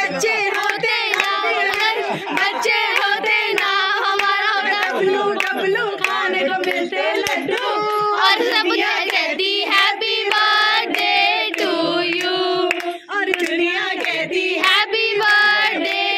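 A group of people singing together and clapping along, several voices overlapping.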